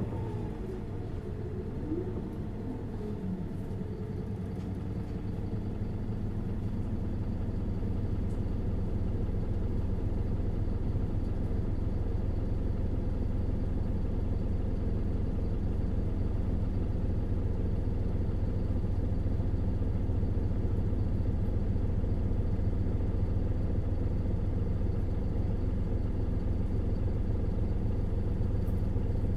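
Isuzu Erga city bus's 5.2-litre four-cylinder turbo diesel running under way, heard from inside the cabin as a steady low hum. It grows louder over the first several seconds, then holds steady.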